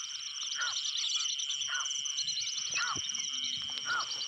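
Night-time insect chorus over rice fields: a steady high buzz and fast chirping, with a short call repeating about once a second.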